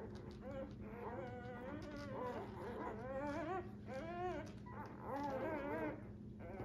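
Newborn Labrador puppies squeaking and whimpering while they nurse, several at once, in high wavering calls that rise and fall.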